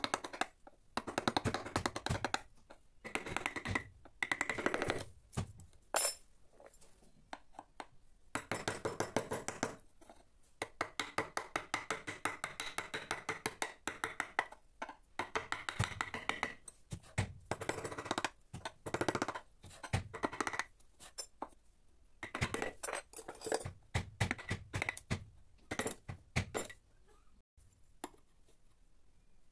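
Wooden mallet tapping a carving chisel into teak in quick runs of light strikes, several a second, with short pauses between runs.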